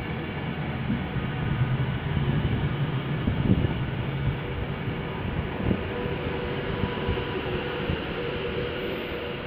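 Class 390 Pendolino electric train running along the platform: a steady rumble of wheels on rails with a few short knocks and a faint steady whine.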